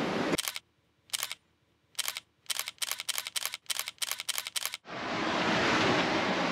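Camera shutter clicks: three single clicks about a second apart, then a quick run of about nine at roughly four a second. Steady wind and sea noise stops just before the first click and comes back about five seconds in.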